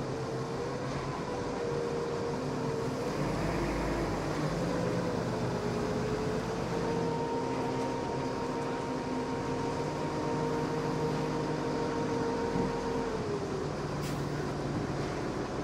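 Large forklift's engine running under load as it drives a lumber load into a shipping container, with a steady whine whose pitch rises and falls with the throttle and drops away near the end.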